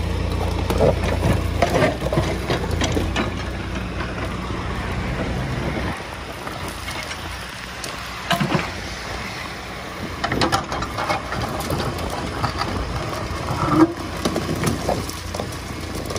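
Case backhoe loader's diesel engine idling steadily, stopping abruptly about six seconds in, followed by scattered knocks and clanks.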